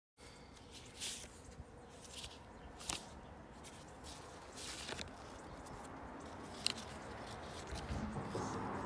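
Paper pages of a handmade journal being handled and turned, with a handful of short swishes and rustles a second or two apart.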